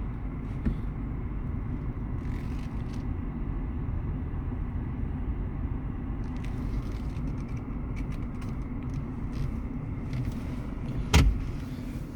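Steady low rumble of a car, with one sharp knock about eleven seconds in.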